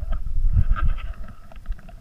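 Irregular low rumbling buffets on the microphone, with a faint crackle above them, dying away about a second and a half in.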